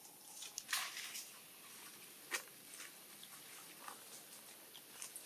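Long-tailed macaque slurping and lapping liquid from a plastic tray: faint wet clicks and smacks, with a louder slurp about a second in and a sharp click a little after two seconds.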